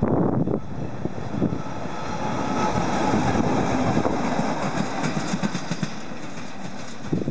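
A ČKD T448p diesel locomotive coupled to an SM30 shunting locomotive, running light without wagons, passes close by: diesel engines running and wheels clicking over the rail joints, loudest around the middle.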